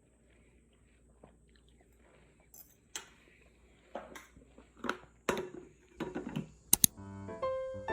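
A handful of short, sharp clicks and knocks, roughly one a second, ending in a quick double click; keyboard music begins near the end.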